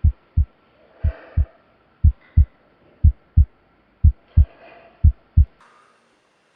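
Heartbeat sound effect: low paired lub-dub thumps about once a second, stopping about five and a half seconds in.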